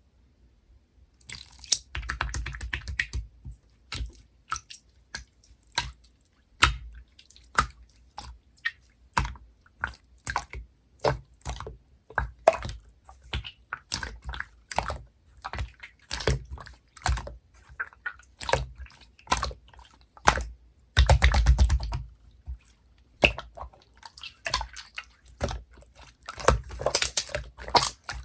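Clear, chewy slime being pressed and squished by hand, making sticky clicks and pops at an irregular pace, with a few denser crackling runs of squishing.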